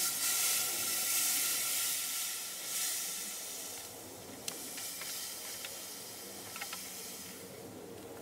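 Liquid propane in a glass bowl hissing as it boils hard around a plant sprig pushed into it, starting suddenly and dying down over several seconds.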